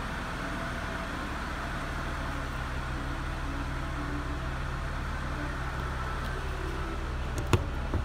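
Mercedes-Benz S320 engine idling steadily, a constant low hum. Near the end comes a single sharp click, with a fainter one just after.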